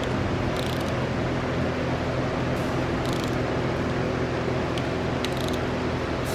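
Short bursts of ratchet clicks as a long ratchet is worked back and forth on the bolts of a Honda D16 cylinder head, over a steady background hum like a shop fan.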